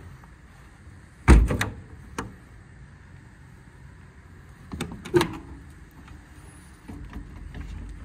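Metal side-compartment doors of an IMT Dominator service body: a door is shut with a loud bang about a second in, followed by a few quick rattles. A smaller cluster of sharp latch clicks and clunks comes around five seconds in.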